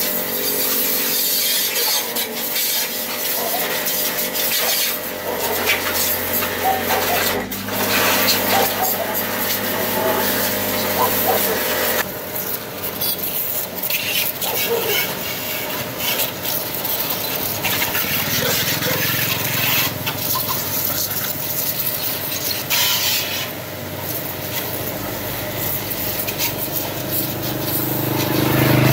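Rough scraping and rubbing of hand tool work on a part, in several spells. A low steady hum runs under it for several seconds in the middle.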